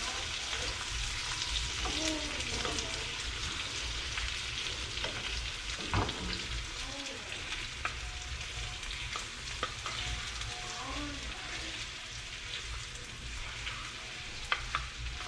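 Sliced hot dogs sizzling as they fry in a pan, with the heat high enough that pieces are starting to burn. A few sharp clicks of stirring come through the steady hiss.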